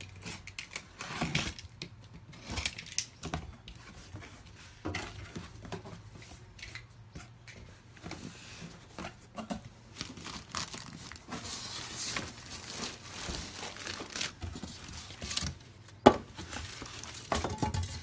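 Unboxing noises: packing tape cut and torn on a cardboard box, cardboard flaps handled, and plastic wrap crinkling and rustling in irregular bursts. One sharp knock about 16 seconds in is the loudest sound.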